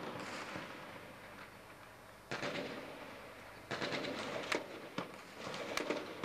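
Bursts of automatic gunfire with echoing reports, the first about two seconds in and more in the second half, with a few sharp single cracks among them.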